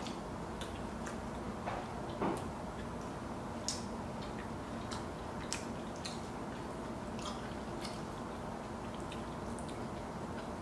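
Chewing of a veggie patty sandwich: scattered short, wet mouth clicks over a steady low room hum, with one slightly louder smack about two seconds in.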